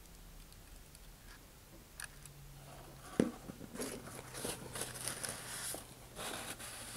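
Faint handling sounds: a light knock about three seconds in as a small plastic super-glue bottle is set down on a cutting mat, then a paper towel rustling over the rocket for the last few seconds.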